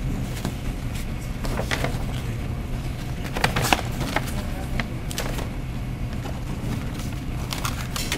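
Scattered rustles and light knocks of paper and objects being handled at a lectern, picked up close by the podium microphone, over a steady low hum.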